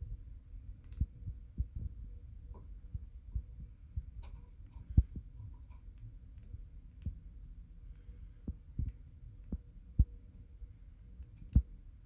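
Irregular low thumps and knocks, from hands working on the truck's tail-light assembly and bumping the microphone. The two sharpest knocks come about five seconds in and again at ten seconds.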